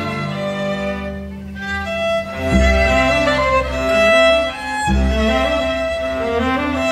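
String quintet of two violins, viola, cello and double bass playing, a violin melody over held lower strings. Deep bass notes come in about two and a half seconds in and again near five seconds.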